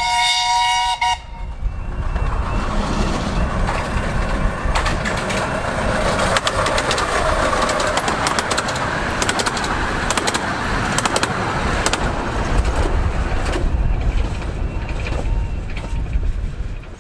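Miniature one-third-scale steam locomotive sounding a chord of several whistle notes that cuts off sharply about a second in, then the train running past at speed: a long loud rushing rumble with a run of sharp clicks, fading near the end.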